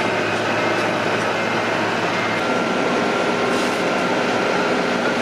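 Boat travel lift's engine running with a steady mechanical drone; its tone shifts about halfway through.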